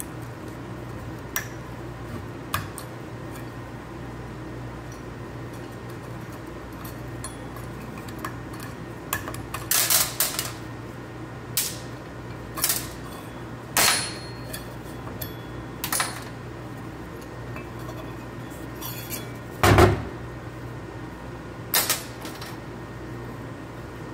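Metal parts clinking and knocking irregularly as a Jeep Grand Cherokee rear axle shaft and loose bearing pieces are handled on a workbench. About a dozen sharp clinks sound over a steady low hum, the loudest about twenty seconds in.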